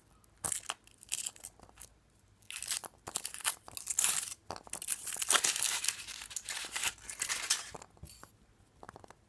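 Foil wrapper of a Kinder Surprise chocolate egg being torn open and unwrapped, crinkling and crackling for several seconds, after a few light handling clicks.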